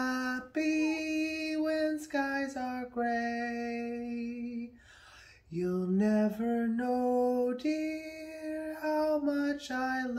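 A single voice singing a slow, wordless tune in long held notes that step from pitch to pitch, with a short pause about halfway through.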